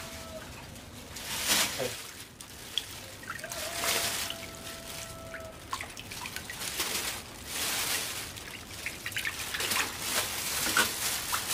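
Water splashing and trickling in irregular bursts. A steady tone sounds for about two seconds a few seconds in.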